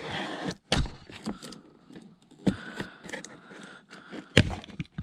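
Cutting and scraping at packing tape on a cardboard box with the point of a geometry-set tool. It makes irregular scratching and clicks, with sharp knocks about a second in and again near the end.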